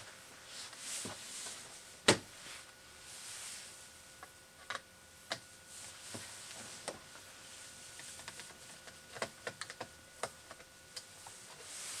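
Scattered clicks and light knocks of a plastic laptop, an IBM ThinkPad T40, being handled and worked on with a screwdriver on a wooden desk, over faint rustling. A single sharp click about two seconds in is the loudest, with small clusters of clicks near the middle and toward the end.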